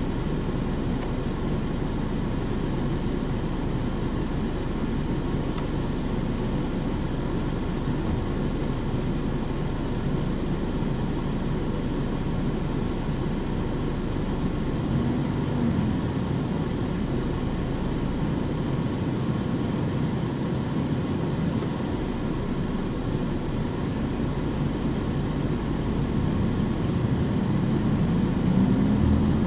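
Diesel engine of a Nissan Diesel UA city bus with Fuji Heavy Industries 7E body (KC-UA460HSN) running steadily. Its note rises and falls once around the middle and climbs again near the end, as the bus pulls away and accelerates.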